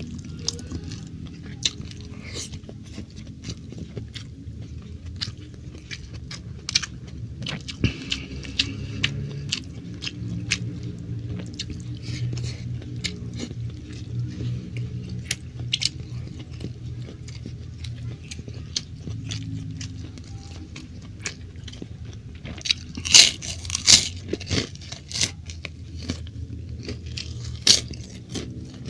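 Close-miked chewing and mouth sounds of a person eating stir-fried beef with rice, with many small wet clicks throughout and a few louder sharp clicks about 23 seconds in and again near the end.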